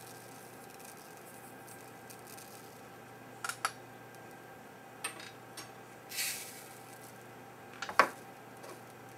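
A few light clicks and taps, with a brief rattle about six seconds in and the sharpest click near the end, as tiny 0.5 mm solder balls are spooned and handled during BGA reballing. A low steady hum sits underneath.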